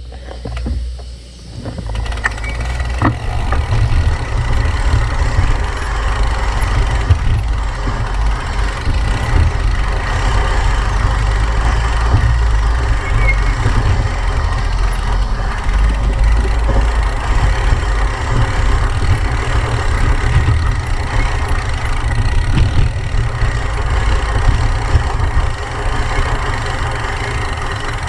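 Gravel bike rolling down a dirt single track: tyres running over the dirt with small rattles and clicks from the bike, under heavy wind buffeting on the action camera's microphone. The noise comes up about two seconds in and stays loud and rough.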